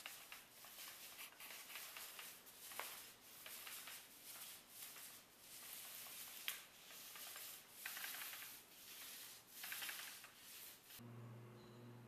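Paint roller on an extension pole rolling wet clear sealer over a flaked concrete floor: a faint swishing that swells and fades with each stroke, with an occasional click. Near the end it gives way to a steady low hum.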